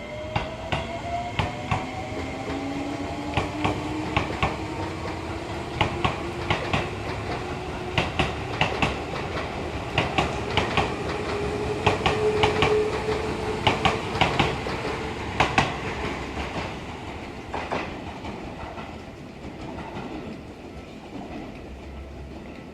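Seibu 20000 series electric train pulling away, the whine of its traction motors rising in pitch as it gathers speed, with the wheels clacking over rail joints in quick pairs. The sound fades over the last few seconds as the train moves off.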